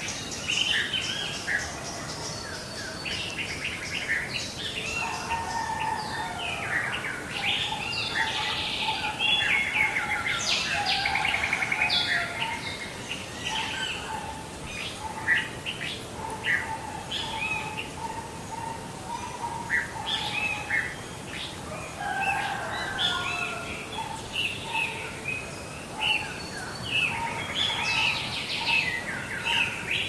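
Several songbirds chirping and singing over one another, with quick high chirps and trills. A lower, steadier call runs beneath them through the middle.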